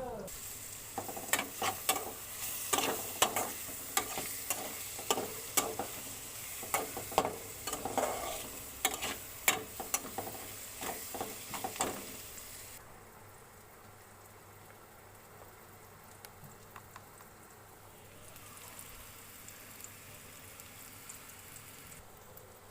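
Food frying in a pan while being stirred with a spatula: sharp scrapes and knocks against the pan over a sizzle. After about twelve seconds the stirring stops and only a quieter sizzle is left.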